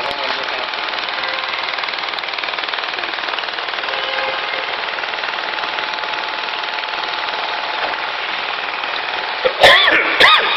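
Fiber laser welder welding aluminium: a steady, fast crackling buzz. Near the end it is broken by a few loud knocks.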